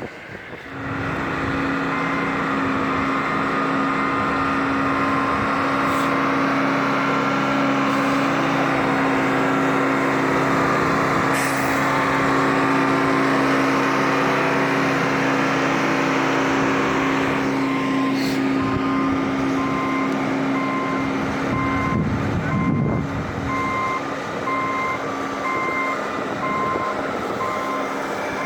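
Heavy diesel vehicle running steadily. From about two-thirds of the way in, a reversing alarm joins it, beeping evenly.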